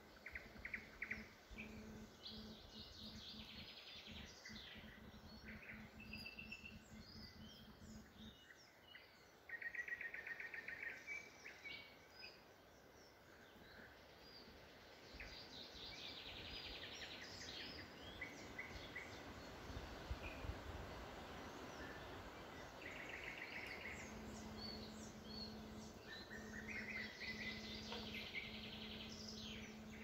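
Woodland birds singing, a mix of short trills and chirps from several birds, the loudest a rapid trill about ten seconds in. A faint low steady hum runs under it for the first eight seconds and again near the end.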